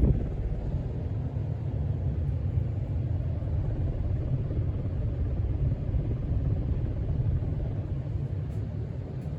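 1983 Casablanca Panama 5 ceiling fan running steadily at full speed, its cane blades moving air in a low, even rumble.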